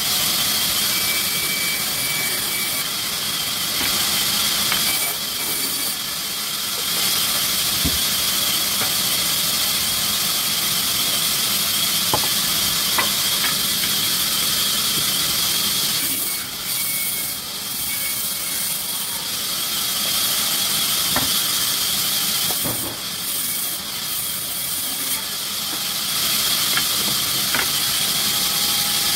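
Sawmill machinery running with a steady, loud hiss, with a few faint clicks and knocks.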